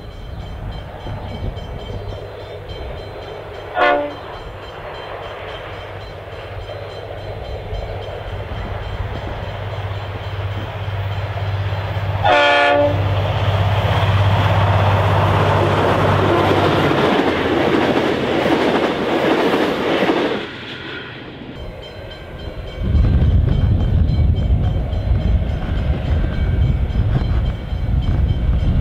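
A V/Line N class diesel-electric locomotive hauling passenger carriages approaches with its engine running steadily. It sounds a short horn toot about four seconds in and a louder short horn blast about twelve seconds in, then passes with rising engine and wheel noise. After a sudden break, a second diesel locomotive hauling an intermodal freight train approaches with a low engine rumble.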